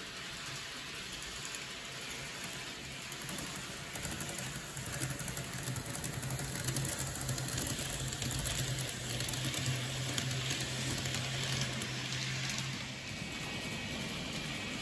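N-gauge model train running along the track: a dense rattle of small wheels clicking over the rail joints, with a low motor hum that comes in about five seconds in and fades near the end.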